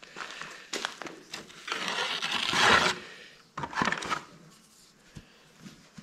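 Footsteps crunching and scraping over a debris-strewn floor, in a few bursts, the longest and loudest from about two to three seconds in.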